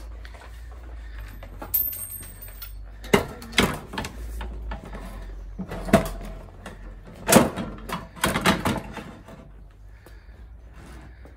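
Vauxhall Vivaro van seat's metal frame clunking and knocking against a steel swivel plate on a wooden table as the seat is set down and shuffled into place. There are several separate knocks, the loudest about seven seconds in.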